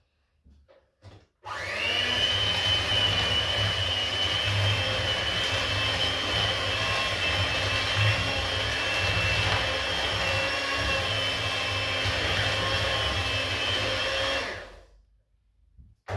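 Electric hand mixer running steadily with its beaters in brownie batter, switched on about a second and a half in and switched off near the end, with a steady whine over the motor noise.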